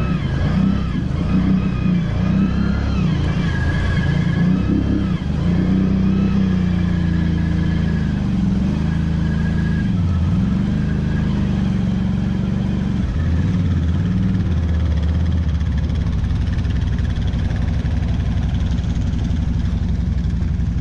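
ATV engine revving up and down, its pitch rising and falling repeatedly through the first dozen seconds, then settling into a steadier low-speed run.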